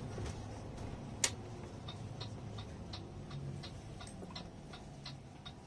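Regular ticking of a bus's turn-signal indicator, about three ticks a second, over the low hum of the engine inside the cabin, with one sharper click about a second in.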